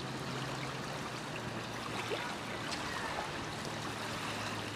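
River water lapping and sloshing around dogs wading in the shallows, a steady trickling wash, over a faint, steady low hum.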